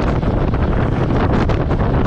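Wind rushing and buffeting over the microphone of a moving motorcycle, with the Royal Enfield Meteor 350's single-cylinder engine running steadily underneath.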